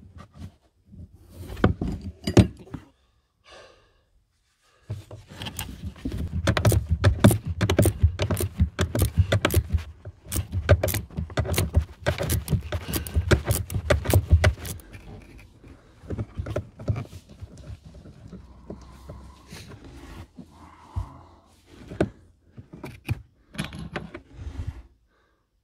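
Steel wrenches clicking and clinking on the nut at the top of a rear shock absorber as it is undone, the pin held with an adjustable wrench. A dense run of quick metallic clicks fills about ten seconds in the middle, with scattered clicks and knocks of handling before and after.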